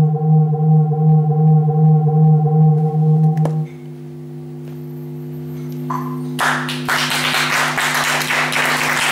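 Electronic synthesizer drone, a steady pitched tone with a slight pulse, cut off with a click about three and a half seconds in while a quieter tone lingers. The audience then starts applauding about six and a half seconds in.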